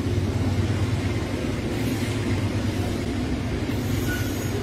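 Long freight train of boxcars and covered hoppers rolling past on the track, a steady, continuous rumble with a low drone.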